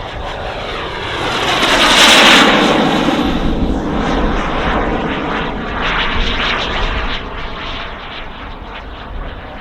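Turbine-powered RC scale model of a BAE Hawk jet making a fast pass. The jet noise swells to its loudest about two seconds in, then gradually fades as it moves away.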